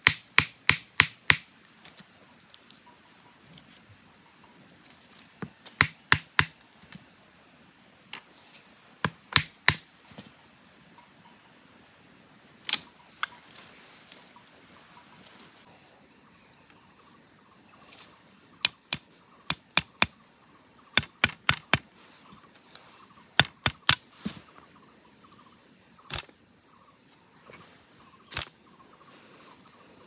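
A bamboo stake being driven into the ground with a machete: a quick run of sharp knocks at the start, then short clusters of taps and clicks scattered through the rest. Under them, a steady high-pitched insect chorus.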